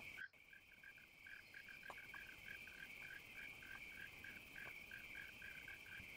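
Faint night-time chorus of frogs and insects: a steady high trill under short calls repeated about four or five times a second. A brief dropout comes just after the start.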